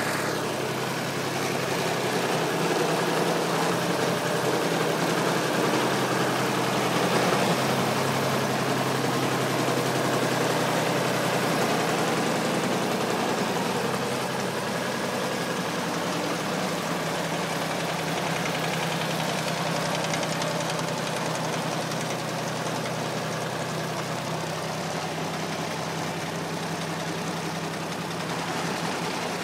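Large stump grinder's engine running steadily, a little louder in the first half and settling slightly lower after that.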